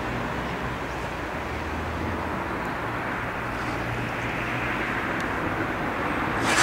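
Steady outdoor street ambience with a wash of traffic noise and a faint low engine hum in the first half, ending with a brief knock near the end.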